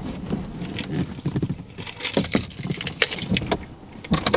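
Keys jangling and clicking as they are handled, with scattered small knocks and rustles.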